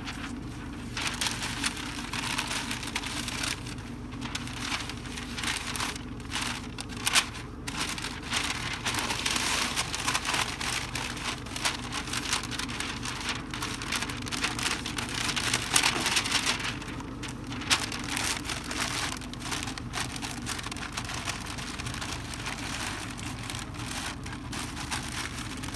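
Stiff pink butcher paper crinkling and rustling in irregular crackly bursts as it is torn off the roll and folded tightly around a brisket.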